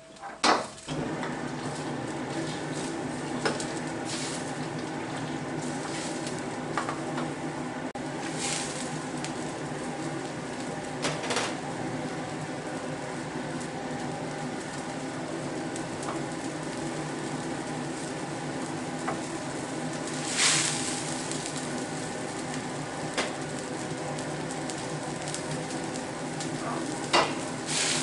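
Food sizzling steadily in hot oil in a wok on a gas wok burner, starting suddenly about a second in as the ingredients go into the pan. A metal ladle clanks and scrapes against the wok a few times.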